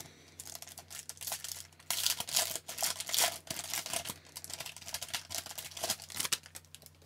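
The foil wrapper of a hockey card pack crinkling and tearing as it is ripped open by hand. The loudest rustling comes about two to three and a half seconds in, then eases off.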